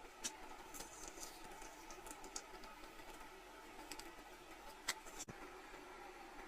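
Faint, scattered light clicks and taps, with one sharper click about five seconds in, over a low steady background noise.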